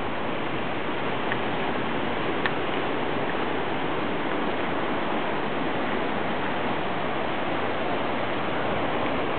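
Hurricane wind and rain: a steady, even rushing hiss, with a couple of faint ticks in the first few seconds.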